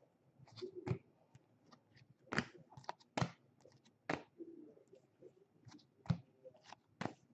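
Trading cards and their packaging being handled: irregular sharp clicks and snaps, about a dozen, with light rustling between.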